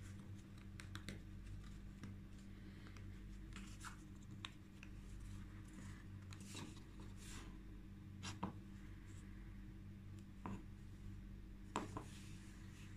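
Faint wood-on-wood rubbing and scraping as a small wooden tenon is worked by hand into a routed mortise, with scattered light clicks and a sharper knock about 8 seconds in and another near the end. A steady low hum runs underneath.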